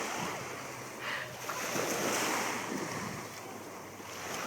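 Small sea waves washing onto the shore, one swell of surf building about a second and a half in and falling back over the next couple of seconds.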